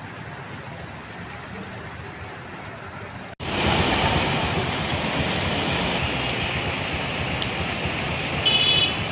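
Traffic moving through a flooded city street: vehicle engines and tyres sloshing through standing water, with a steady rushing of water. The sound jumps louder about three and a half seconds in, and a vehicle horn honks briefly near the end.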